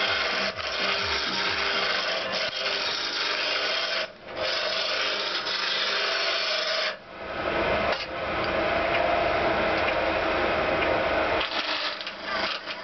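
Wood lathe turning a wooden spindle, with a hand-held turning tool shearing the spinning wood in a steady cutting noise. The cut breaks off briefly about 4 s and 7 s in and comes back rougher and lower. It turns choppy near the end.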